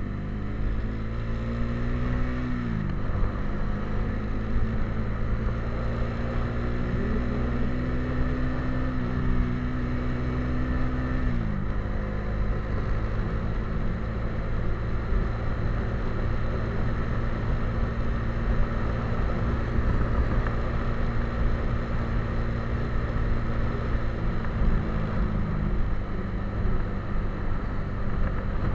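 Motorcycle engine running under way, with road and wind noise. Its pitch climbs as it accelerates and drops sharply twice, about 3 and 11 seconds in, then holds steady.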